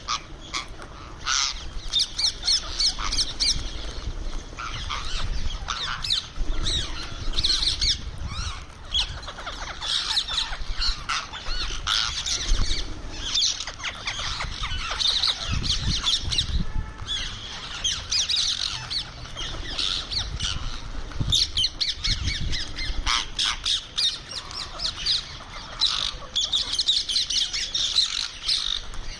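Indian ringneck parakeet squawking in rapid, near-continuous shrill calls.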